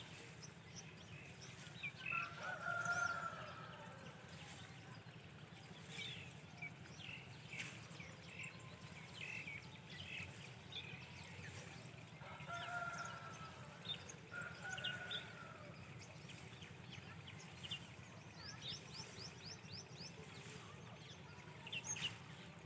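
Roosters crowing three times, each a long call that drops off at the end, while small birds chirp throughout and one gives a quick trill near the end. A steady low hum lies underneath.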